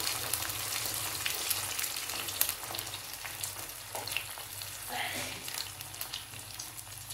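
Hot oil in a frying pan of fried chicken and spices sizzling and crackling as water is poured in, easing a little near the end.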